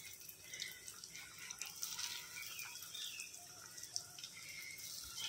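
A breaded potato cheese ball deep-frying in hot oil in a kadai: faint, steady sizzling with small scattered crackles and pops.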